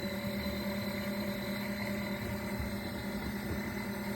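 Small portable washing machine running its wash cycle: a steady motor hum with a churning, whooshing wash underneath.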